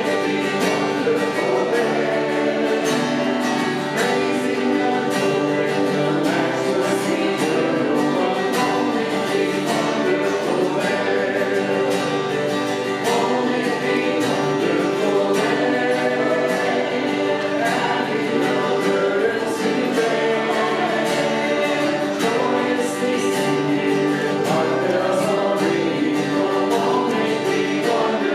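Gospel music: a group of voices singing together over instrumental accompaniment.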